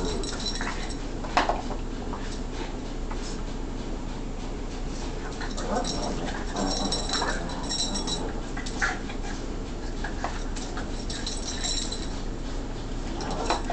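Two Boston terriers play-fighting, with scuffling and short knocks and, at times, high thin whines.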